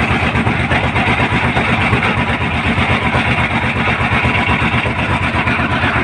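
Small fishing boat's engine running steadily while trolling, with a rapid, even pulse.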